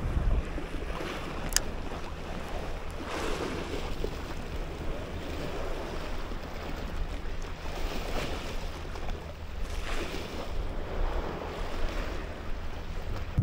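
Small sea waves lapping at the water's edge, swelling and fading every couple of seconds, with wind rumbling on the microphone. A single sharp click about a second and a half in.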